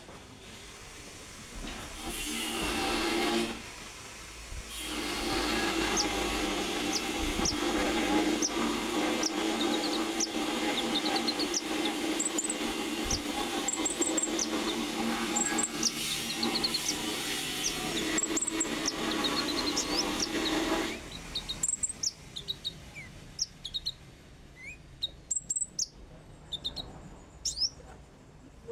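A konin songbird chirping in quick, short, high notes. For most of the clip a loud steady hiss with a low hum runs underneath, then cuts off about two-thirds of the way through, leaving the chirps alone.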